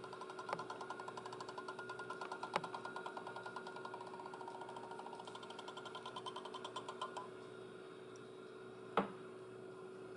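Scotch thermal laminator's rollers drawing a laminating pouch through: the drive motor runs with rapid rhythmic clicking over a steady hum, and the clicking stops about seven seconds in. A single knock follows near the end.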